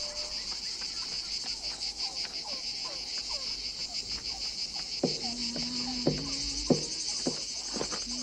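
Insects chirping in a steady, pulsing high drone, with faint short chirps over it. From about five seconds in, a row of sharp knocks and short low hums joins them.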